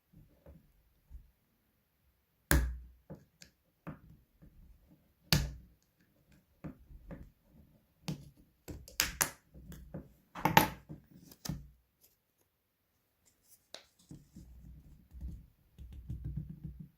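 Plastic clips of a Samsung Galaxy Note 3's cover clicking and snapping as the cover is pried off, with handling and scraping of the phone between. Two sharp snaps a few seconds apart, then a quick run of clicks a little past the middle.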